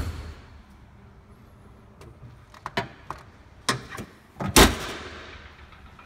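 A body panel slams shut at the start, a few light clicks and knocks follow, and then the Fiat X1/9's engine cover is slammed shut about four and a half seconds in, its sheet-metal panel ringing briefly after the bang.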